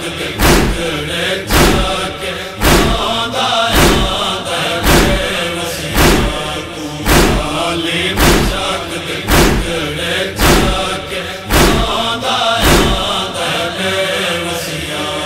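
Group of men chanting a noha (Shia lament) in unison, with a sharp thud of matam chest-beating about once a second keeping the beat. It all fades out near the end.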